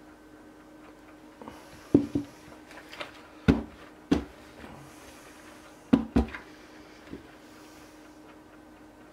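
A handful of sharp knocks, some in quick pairs, as a mixing bowl, spatula and silicone soap mould are put down and handled on a table after the batter is poured.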